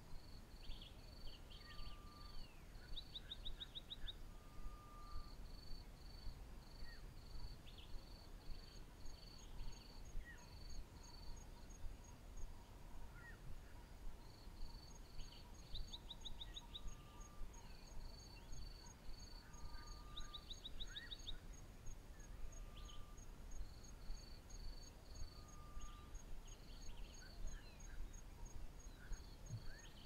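African bush soundscape: insects chirping in repeated short trains, with a fainter, high, fast steady ticking from another insect joining about a third of the way in. Scattered short bird calls and whistled notes sound over a low rumble.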